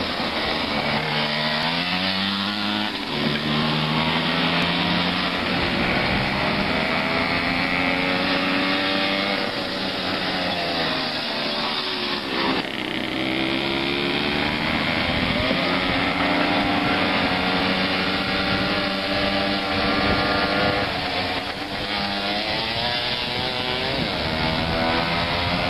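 Small two-stroke mopeds revving as they ride past, their engine pitch rising and falling over and over, at times two machines at once.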